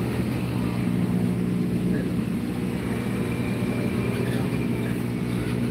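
A steady low motor hum with several even tones, running without a break.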